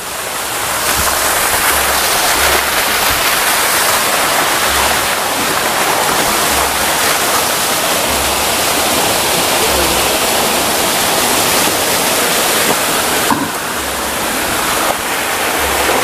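Steady rushing of a small waterfall and stream cascading over rocks.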